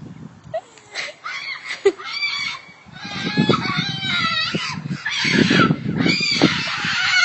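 Birds calling loudly and repeatedly, many calls overlapping, growing denser and louder toward the end.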